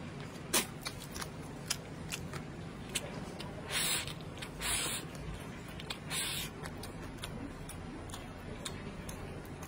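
Close-up eating sounds: a man chewing a mouthful of rice and braised pork, with many small sharp clicks. Three short hissing slurps about four, five and six seconds in as food is shovelled from the plate into the mouth.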